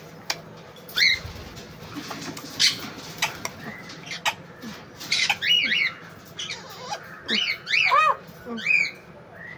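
Pet parrots chirping and squawking in short, arching calls, more densely in the second half, with sharp clicks scattered between them.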